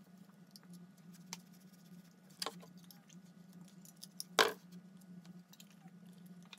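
Thin galvanized steel wire being twisted by hand and with needle-nose pliers, giving light scattered clicks and ticks, with two sharper clicks, the louder about four and a half seconds in. A steady low hum runs underneath.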